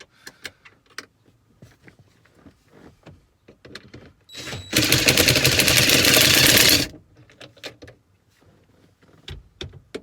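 Small clicks and knocks of hand tools and parts being handled, then a power tool, such as a cordless drill or driver, runs loud for about two seconds near the middle and stops abruptly, the kind of tool used for backing out a shift box's mounting bolts.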